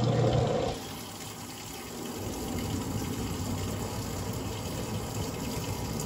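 Midea top-loading washing machine taking in water during its wash cycle: a steady rush of water pouring into the tub. A louder low hum from the machine stops under a second in.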